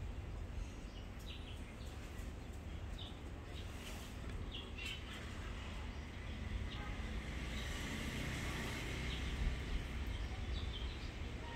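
Short high bird chirps, scattered every second or two, over a steady low background rumble.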